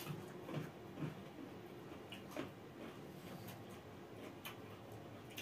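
Close-up eating sounds: chewing and lip smacks as two people eat curry, rice and vegetables with their fingers, heard as soft irregular clicks about once a second.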